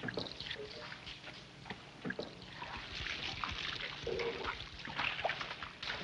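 Water poured from clay jars, splashing and trickling over a stone altar and its wood. It grows louder about halfway through and again near the end.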